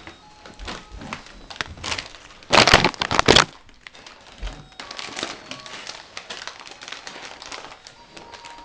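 Plastic snack bag crinkling as it is handled, with a loud burst of crinkling about two and a half seconds in that lasts about a second.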